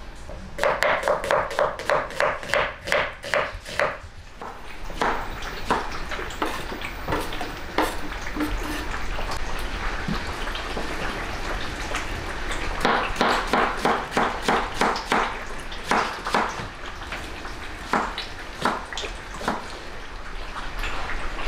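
Metal kitchen clatter: a ladle and pot lid knocking and clinking on large stainless-steel stock pots, with two runs of quick rhythmic ringing strikes, one near the start and one about midway.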